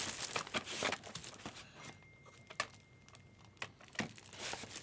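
Rustling and light taps from a cardboard trading-card box being handled and opened and a clear plastic card case being set down. The rustling is densest in the first second and a half, then thins to scattered taps.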